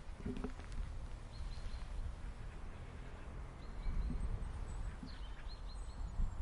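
Common chiffchaff singing: short high notes in brief runs of two or three, a second or two apart, over a steady low background rumble.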